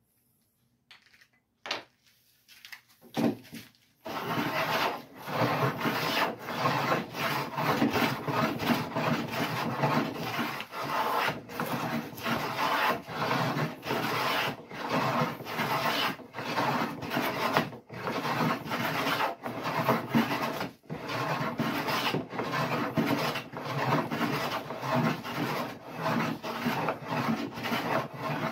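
Hand rebate plane cutting a rebate along cherry picture-frame stock in quick back-and-forth strokes. The shaving strokes follow one another with short breaks about once a second. A few light knocks come first, and the planing starts about four seconds in.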